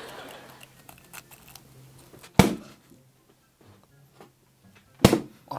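Two loud sharp crunches, about two and a half seconds apart, as the hard sugar crust of a giant kohakuto crystal candy is bitten and chewed close to the microphone, with faint crackles of chewing between them.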